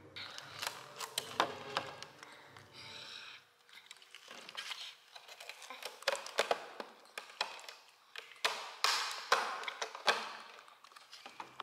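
Baby macaque eating strawberries close up: irregular clicks and smacks of biting and chewing, with a busier cluster near the end.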